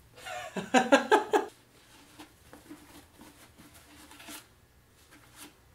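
A person's voice briefly, then a towel wiping the inside of a glass water-filter pitcher: faint rubbing with small knocks of glass.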